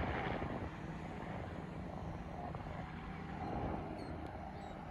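Helicopter flying away, its rotor and engine a low steady drone that fades as it draws off.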